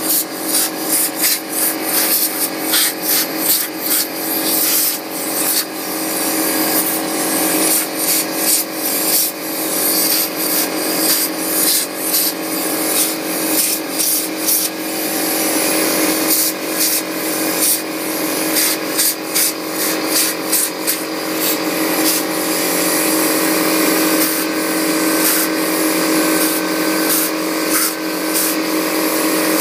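Compressed air from an air compressor's blow gun hissing in quick repeated bursts, about two a second, merging into a steadier blast near the end, over the steady hum of the compressor running.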